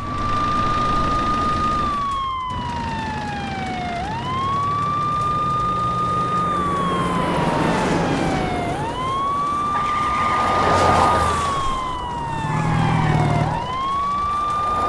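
Police car siren wailing in slow cycles: each one rises quickly, holds a high note for about two seconds, then falls slowly, and a new cycle starts about every four and a half seconds. A low rumble runs underneath.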